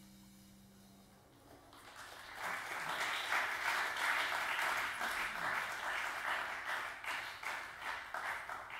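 The band's last held low note fades out, then an audience applauds, swelling about two seconds in and tapering off near the end.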